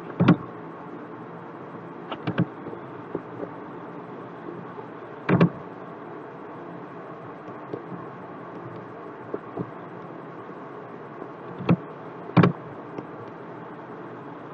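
Computer mouse button clicks: about half a dozen sharp clicks, a few of them in quick double pairs, spread irregularly over a steady low background hum.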